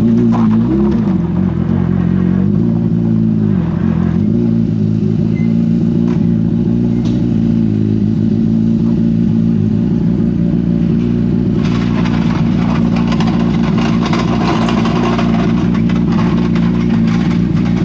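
Škoda Fabia RS Rally2's turbocharged 1.6-litre four-cylinder engine idling steadily, dipping briefly in pitch twice in the first few seconds. From about twelve seconds in, short clicks and knocks of work on the car sound over it.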